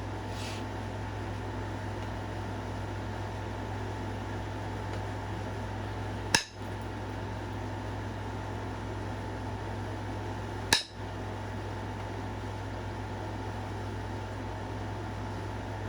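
Sharp single clicks of stone being flaked while knapping a stone point, spaced about four to five seconds apart, three in all, the last at the very end. A steady low hum runs underneath.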